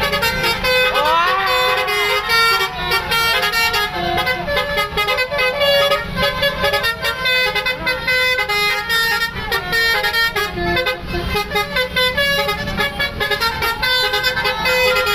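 Bus multi-tone 'telolet' basuri horn playing a rapid melody of short, stepped notes, over a constant low rumble.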